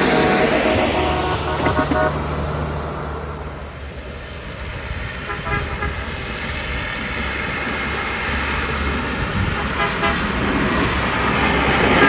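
Locomotive air horn sounding, strong at first, dropping away about four seconds in, then sounding again and growing louder toward the end as the train draws near. Such horn blowing is the warning a train gives a track crew working on the line.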